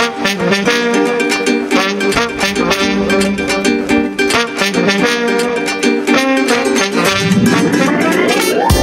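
Background music: quick pitched notes in an even rhythm over sustained chords, with a sweep rising in pitch through the last two seconds.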